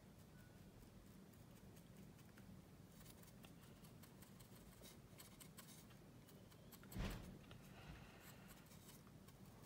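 Faint scratching and scraping of a small tool working wet paint off a plastic scale model's wing root to make paint chips, with one louder bump about seven seconds in.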